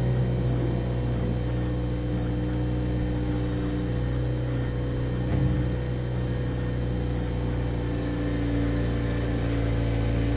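Bobcat 642 skid-steer loader's engine running at a steady speed while it works, with a slight rise a little over five seconds in.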